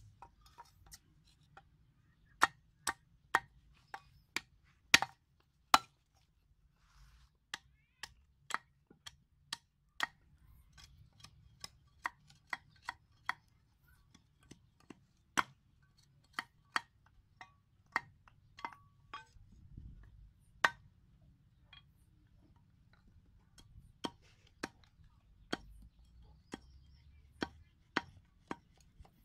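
Short, sharp chops of a machete blade cutting into a green forked branch as it is shaped into a slingshot fork, irregular but often about two strokes a second.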